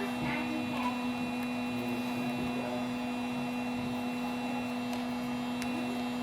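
Steady electrical hum, with a few faint light ticks.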